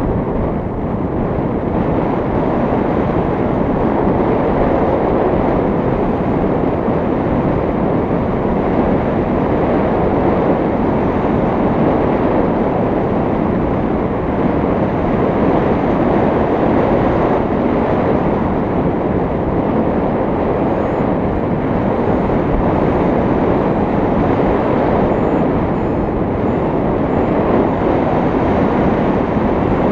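Steady, unbroken rush of wind over a GoPro's microphone, caused by the airflow of a tandem paraglider in flight.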